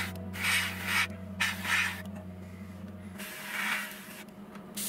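Airbrush spraying paint in short hissing bursts, about five of them with a longer pause in the middle, as white is laid along a model's panel lines.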